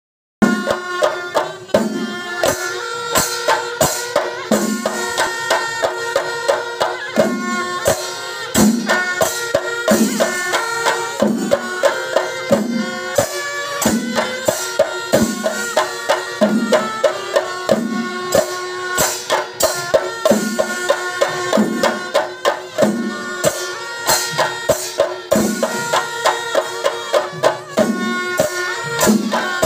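Kerala chenda melam: massed chenda drums beating dense strokes over a deep beat that comes roughly once a second, with kuzhal double-reed pipes holding sustained shrill melody above.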